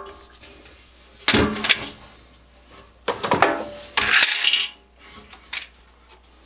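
Metal parts and tools being handled on a workbench: several short bursts of clattering and rattling with a few sharp clicks.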